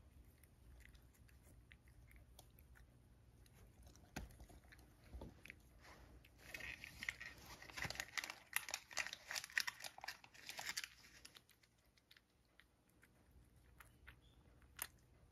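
A cat crunching dry treats (Churu Bits): a dense run of quick, crisp bites for about four seconds in the middle, with scattered single chews before and after.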